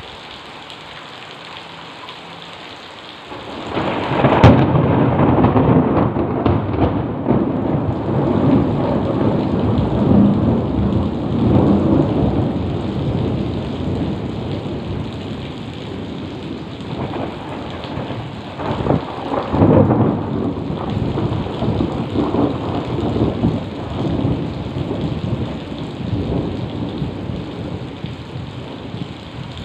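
Heavy rain falling steadily. A few seconds in, a thunderclap cracks and rolls into a long rumble, and a second peal of thunder rumbles about two-thirds of the way through before fading.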